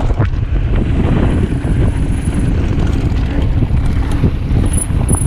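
Wind buffeting the microphone and low rumble of a mountain bike rolling fast down a dry dirt trail, with short knocks and rattles from bumps. A faint high tone comes in about a second in and again near the end.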